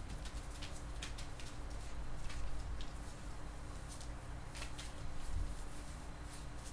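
Newspaper rustling and crinkling under two wrestling dachshund puppies, with scattered short scratches and ticks from their paws and claws.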